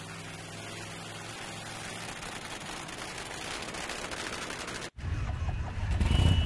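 Motorcycle engine sound effect idling with a fast, even rattle, growing slightly louder; just before 5 s it cuts off and a louder low rumble of several motorcycle engines running together takes over.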